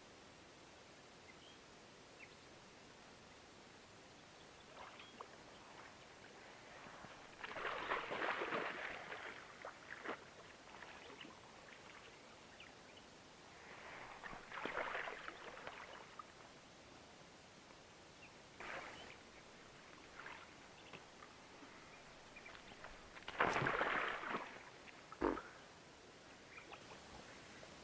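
Water splashing beside a small boat in three bursts of a second or two, several seconds apart, with a single sharp knock just after the last.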